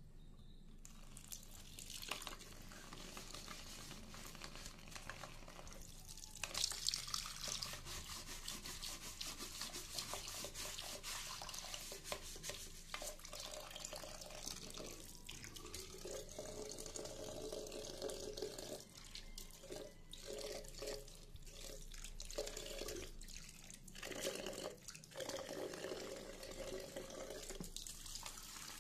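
Tap water running into a ceramic washbasin, splashing unevenly as a hand and scrub brush work under the stream. The water comes on about a second in.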